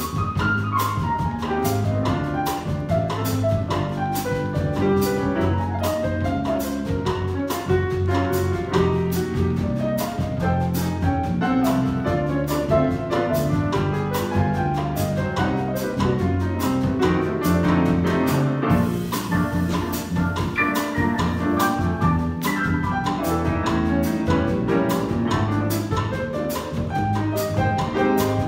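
Small jazz combo playing a bossa nova: piano, electric bass, guitar and drum kit, with the bass walking low and the cymbals ticking steadily in time.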